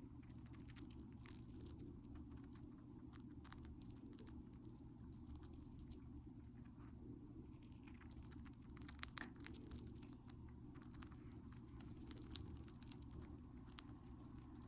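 Hamster nibbling and crunching on food: faint, crisp little clicks scattered throughout, bunching into quicker runs about nine and twelve seconds in, over a steady low hum.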